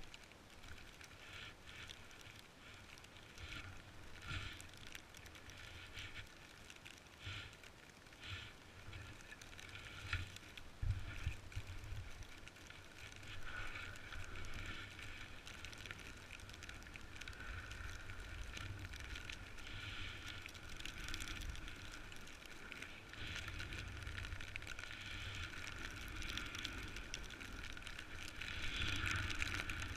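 Snowboard sliding and scraping over snow on a run down, in uneven surges, with gusty wind buffeting the microphone as a low rumble.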